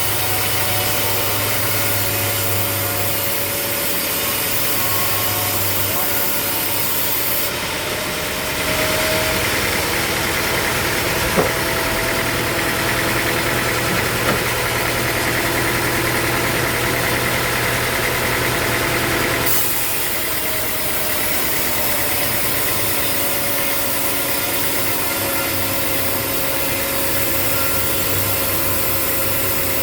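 Sawmill machinery running steadily with an engine-like hum. The sound changes abruptly about seven seconds in and again near twenty seconds, with two short knocks in between.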